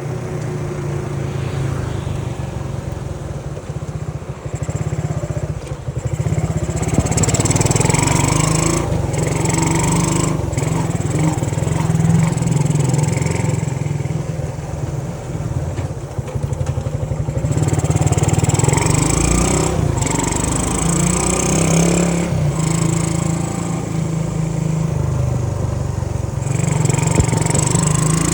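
Honda C70 step-through's small single-cylinder four-stroke engine running steadily while riding, with a rushing noise that swells and fades several times.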